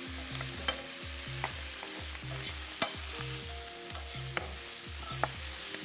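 Vegetables sizzling steadily in a hot olive-oil frying pan, with five irregular sharp taps of a kitchen knife on a wooden cutting board as tomatoes are sliced.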